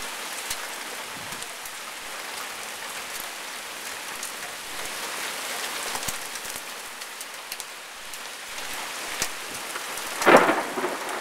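Summer thunderstorm rain falling steadily, an even hiss with scattered sharp drop ticks. A brief louder noise stands out near the end.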